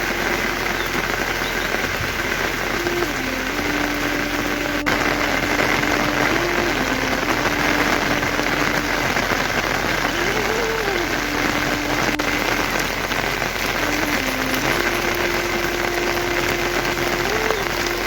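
Steady heavy rain falling on surfaces, an even hiss, with a slow sustained melody of long held notes running over it.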